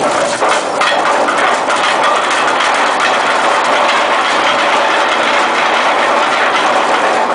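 Anchor chain running out at speed over a container ship's windlass chain wheel and down the hawspipe as the anchor is let go: a loud, steady clatter of heavy steel links.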